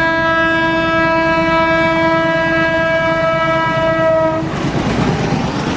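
WDM-3D diesel locomotive's horn held in one long, loud, steady note that cuts off about four seconds in, followed by the rushing rumble of the express train running through the station without stopping.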